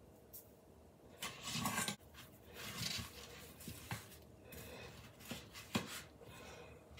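Chef's knife sawing through a stiff slab of dried salt cod on a plastic cutting board: rasping, scraping strokes, with a few sharp clicks of the blade against the board.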